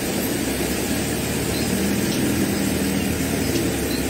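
Floodwater rushing through a street: a steady, even rush of noise, with a faint low hum for a second or two in the middle.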